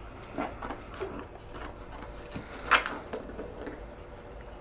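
Dogs at play, panting close by with short scuffling noises and one louder sharp sound a little past the middle.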